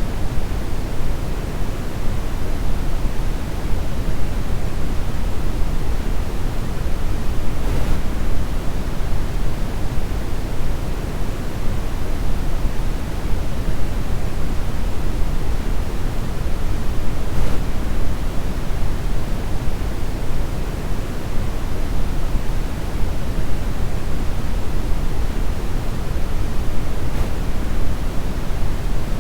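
Brown noise: a steady, even rush of generated noise, strongest in the low end and thinning out toward the top.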